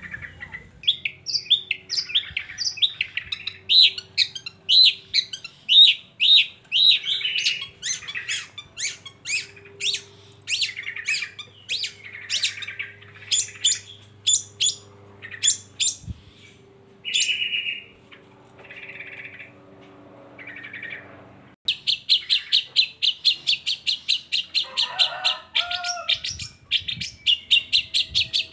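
Long-tailed shrike (cendet) singing: a quick series of sharp, high chirps and varied notes, then, about two-thirds of the way in, a fast rattling trill of rapid repeated notes.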